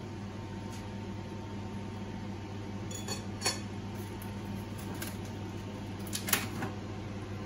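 A few light clinks of dishware on a china plate, the sharpest about halfway through and again a little later, over a steady low mechanical hum.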